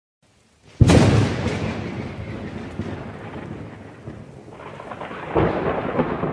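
A thunderclap hits a little under a second in and rumbles away over several seconds under a steady hiss of rain, then a second rumble of thunder swells near the end.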